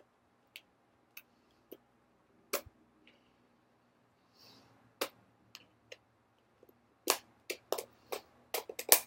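Scattered light clicks and taps of hands working at a taped plastic package to free a fidget cube, with a quicker run of clicks near the end.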